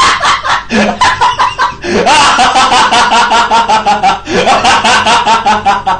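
Rapid, high-pitched laughter in several long runs of quick staccato pulses, about eight a second, with short breaks between runs.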